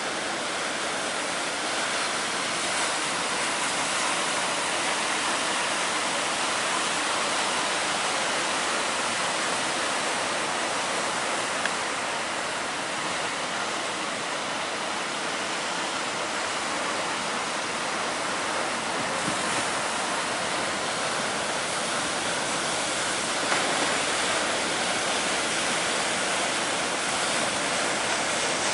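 Big ocean waves breaking: a steady, unbroken rush of surf.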